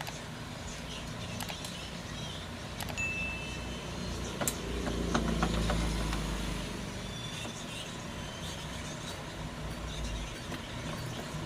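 Steady road-traffic noise with a motor vehicle's engine swelling and fading about five seconds in, and a few sharp clicks scattered through it.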